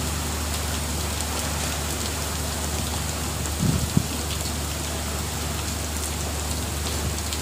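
Heavy rain pouring steadily onto the sea and the boat, with a low steady rumble underneath. There is a brief thump about four seconds in.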